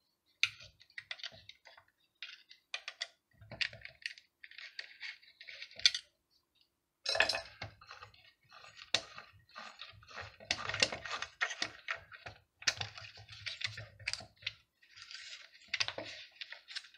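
Hands working the metal fittings of a small hobby lathe to free a freshly turned balsa float: irregular clicks, light knocks and rustling, with no motor running.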